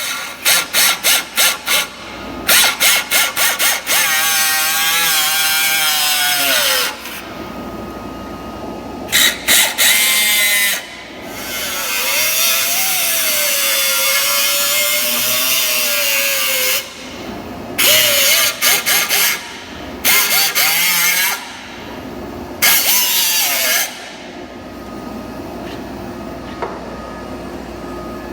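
High-speed power tool cutting the steel windage tray of the oil pan: first triggered in quick on-off bursts, then run in long stretches of several seconds whose pitch sags under load and recovers, with further short bursts between pauses.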